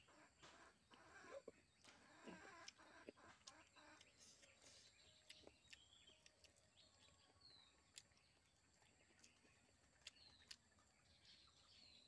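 Faint eating sounds from biting and chewing a chicken leg held by hand, heard as scattered soft clicks. Behind them are faint animal calls: short clucks in the first few seconds, then a few brief high chirps.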